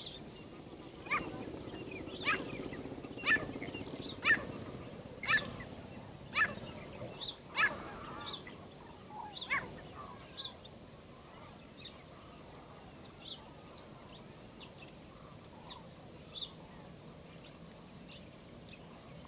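A bird calling over and over, about one sharp downward-sliding call a second. Near the middle the calls turn fainter and shorter and come further apart.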